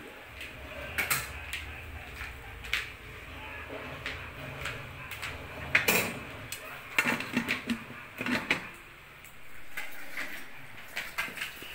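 Aluminium pressure cooker lid being lifted off and set back on the pot: a series of sharp metal clanks and knocks, busiest in the middle, over a low steady hum.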